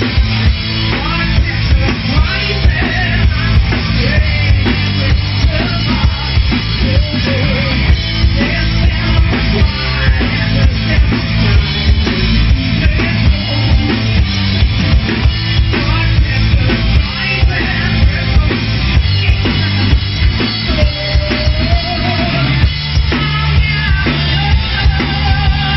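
Live hard rock band playing loud and full: drum kit with a steady beat, distorted electric guitar and electric bass, with a woman singing lead in places.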